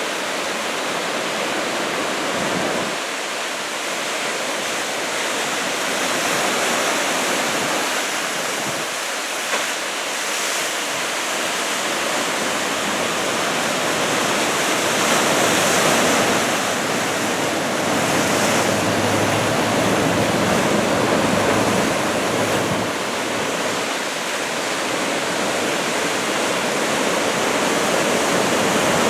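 Ocean surf from a roughly two-metre typhoon swell: a continuous rush of breaking waves and whitewater that swells louder in stretches around the middle.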